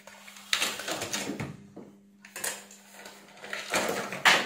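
Three short bursts of clattering, rustling handling noise from parts being moved on a workbench, the loudest near the end, over a steady low hum.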